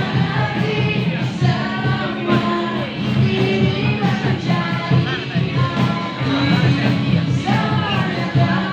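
A song with a singer's voice over instrumental accompaniment, the sung lines bending and wavering in pitch over steady low notes.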